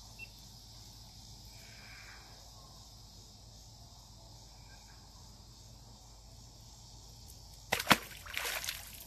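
A small largemouth bass dropped back into the creek: a sudden splash near the end, followed by a few smaller splashes, over a faint steady background.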